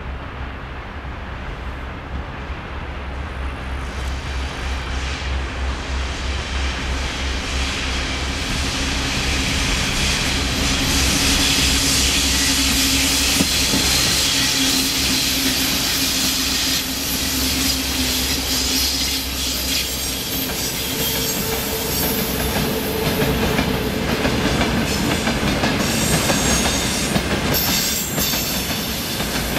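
VL10U electric locomotives hauling a freight train come closer and pass, getting louder over the first ten seconds or so, with a steady hum while they go by. Then loaded tank cars roll past, wheels clattering over the rail joints.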